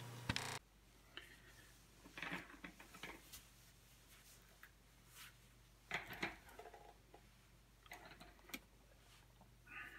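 Near silence: faint room tone. A low hum cuts off about half a second in, and a handful of soft, scattered clicks and rustles follow.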